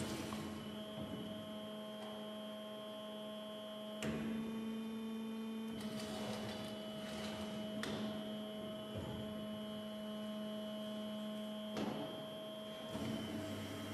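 CNC mitre-cutting band saw humming steadily as its saw head swivels to a new cutting angle, with a few short clunks about four, eight and twelve seconds in.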